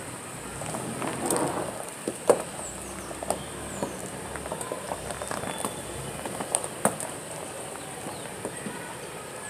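Footsteps crunching on gravel, irregular sharp clicks and patters over a steady high hiss.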